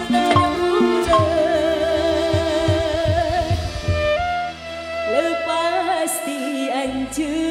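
Live dangdut song: a woman's voice sings a long, wavering line through a microphone and PA, backed by a band with violin and guitar. Drum strokes mark the beat in the first second or so, and the backing thins out for a moment past the middle.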